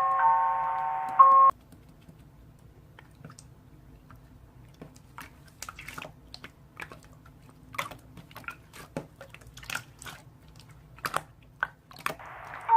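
Background glockenspiel-like music cuts off about a second and a half in. It is followed by slime being handled: irregular small, wet clicks and pops that come more often toward the end.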